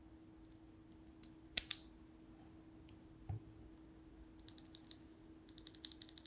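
Plastic clicks and snaps from a Durock linear mechanical keyboard switch being snapped back together. The loudest is a sharp double snap about a second and a half in as the housing halves latch, followed by a soft knock and then a run of quick light clicks near the end.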